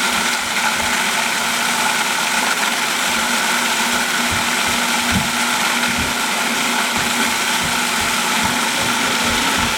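Electric food processor running continuously, blending thick black bean brownie batter: a steady motor hum with irregular low knocks as the batter churns in the bowl.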